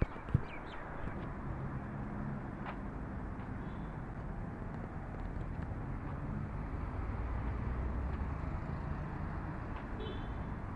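Street ambience: a steady hum of traffic, with a single sharp click about a third of a second in and a few faint high chirps.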